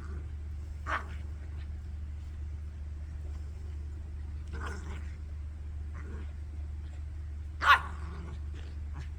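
A dog barking: three short barks a few seconds apart, the last one the loudest.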